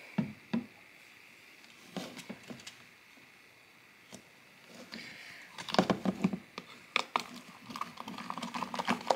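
Plastic spoon stirring thick fluffy slime in a plastic tub, giving irregular clicks and taps against the tub's sides. The taps are sparse at first and come thick and fast from about halfway through. The slime is being mixed with activator and is thickening.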